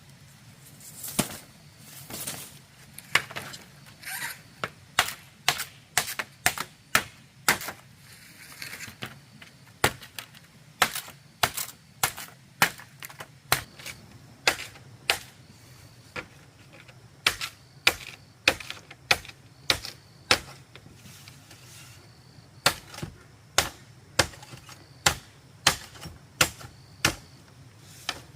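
Repeated sharp strikes of a hand tool on bamboo, about one to two a second at an uneven pace, some in quick pairs.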